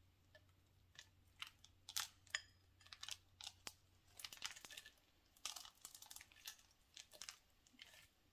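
Chopped peanuts sprinkled by hand onto a caramel-filled cookie-crumb pie crust: irregular light ticks and rustles as the pieces drop and land, loudest about two seconds in.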